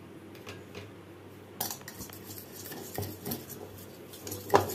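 Metal spoon clinking and scraping against a bowl while stirring cornflour into beaten egg. The irregular clicks start about a second and a half in, with the loudest clink near the end.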